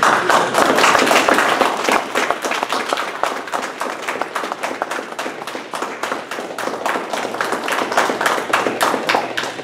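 Audience applauding, many hands clapping together. It starts suddenly and tapers off near the end.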